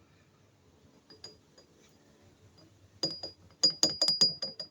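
Light metallic clinking: faint ticks at first, then from about three seconds in a quick, irregular run of sharp clinks, each with the same brief high ring.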